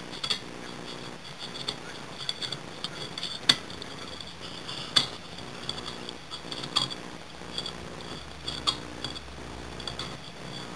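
Dachshund chewing on a steel chair rung, its teeth clicking and scraping against the metal bar in a run of small clinks. Two sharp clinks, about three and a half and five seconds in, are the loudest.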